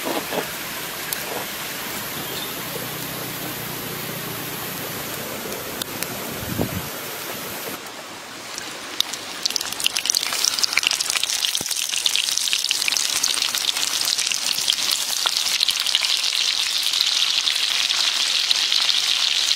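An even hiss for the first eight seconds, then from about nine seconds in, hot oil sizzling and crackling in a wok as hollowed bitter melon pieces are set into it. The sizzling grows louder toward the end.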